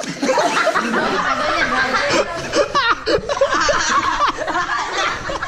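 A small group of people laughing and chattering together, several voices overlapping.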